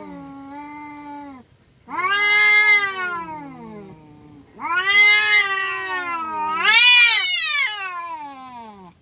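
Two domestic cats in a face-off caterwauling: long, wavering yowls, the threat calls of a fight about to break out. There are three yowls with short gaps between them, and the last climbs to a shrill wail about seven seconds in before sliding back down.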